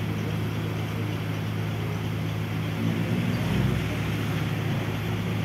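Steady low engine hum of street traffic, swelling briefly a little past halfway.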